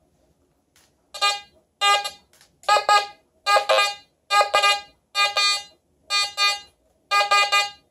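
Nokta Fors Core metal detector sounding its target tone as a silver necklace is passed over the coil: about eight short buzzy beeps at a steady pitch, nearly one a second, starting about a second in. The signal reads as a target ID in the high 40s.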